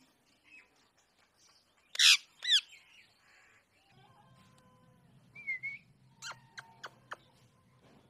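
Pet rose-ringed parakeet (Indian ringneck) giving two loud squawks about two seconds in, then a short whistle and a quick run of sharp short calls near the end.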